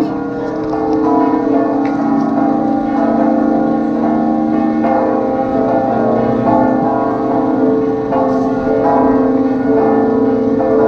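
Loud ringing of St Helen's Basilica's church bells, several bells sounding together so that their tones overlap in a dense, continuous wash, with fresh strikes renewing it all through.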